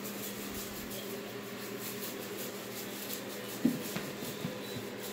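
Kitten playing with a feather wand toy on a hard floor: faint rustling over a steady room hum, then a soft thump about two-thirds of the way in and a few lighter taps as it pounces and bats at the toy.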